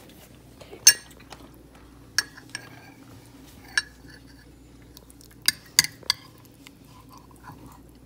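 Metal spoon clinking against a ceramic mug while scooping through apple crisp: about half a dozen sharp clinks at uneven intervals, the loudest about a second in, with three in quick succession near the six-second mark.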